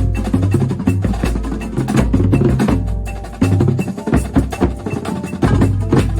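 Drum corps percussion section playing together: rapid drum and stick strokes over mallet keyboards and sustained low bass tones.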